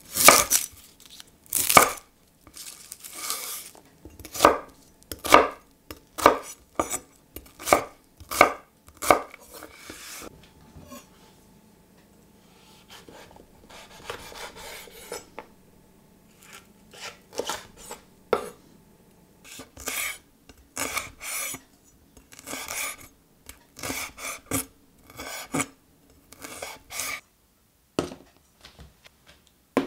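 Chef's knife slicing red onion and then red chilli on a wooden cutting board, in single crisp cuts about one a second. After a quieter stretch about a third of the way in, the cuts start again in a quicker run.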